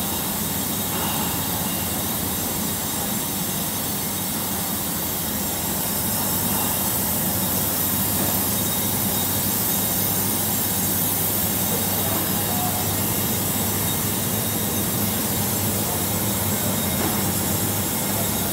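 Steam shrink tunnel running: a steady hiss of steam over a low, even machine hum.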